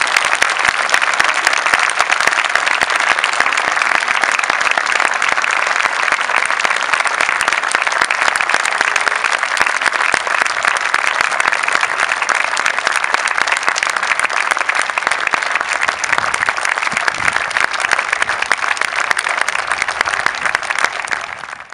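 Large audience applauding, a long, steady patter of many hands clapping together.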